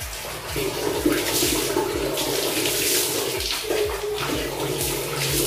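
Water running steadily and splashing in a small tiled bathroom.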